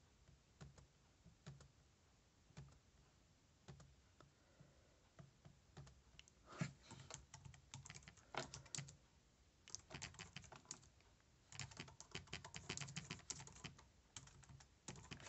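Faint typing on a laptop keyboard: a few scattered key presses, then bursts of rapid keystrokes from about six seconds in.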